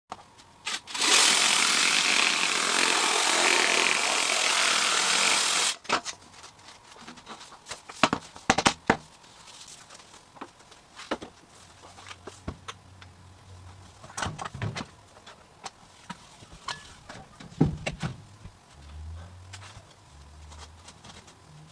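A power tool runs loudly for about five seconds and cuts off abruptly, followed by a series of sharp knocks and clicks from handling tools and parts.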